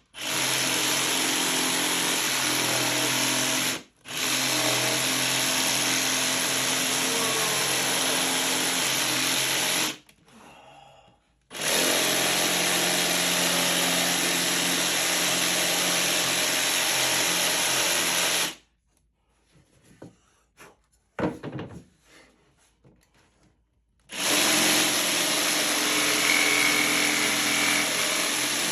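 Jigsaw cutting through wood with a steady motor hum. It stops briefly about four seconds in, again for a second or so around ten seconds, and for about five seconds past the middle, with a few light knocks while it is off, then starts cutting again.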